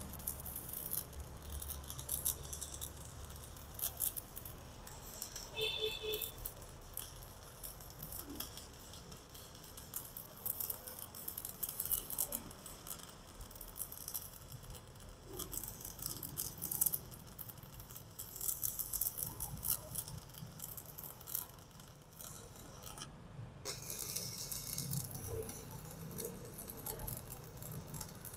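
Stick (MMA) welding arc from a Jacpro ZX7-200S inverter welder, crackling steadily as the electrode burns. The crackle stops for a moment about 23 seconds in, then resumes.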